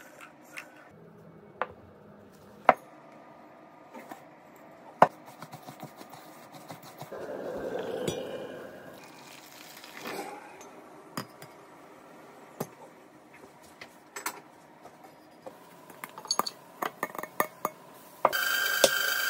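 Ceramic and stainless steel bowls and utensils clinking and knocking on a table, with liquid poured into a stainless steel bowl about halfway through. About a second before the end, a KitchenAid Professional 5 Plus stand mixer with a wire whisk starts and runs steadily with a whine.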